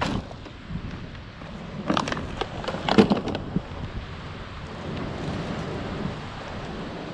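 Gear being handled on bare rock: a short cluster of knocks and plastic crackles about two to three and a half seconds in as a plastic water bottle is set down beside a backpack, over a steady low rumble of wind.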